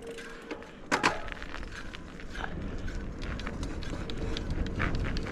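Wind rushing over the microphone and tyres rolling on tarmac while descending, building as speed picks up. There is a sharp click about a second in and scattered light ticks.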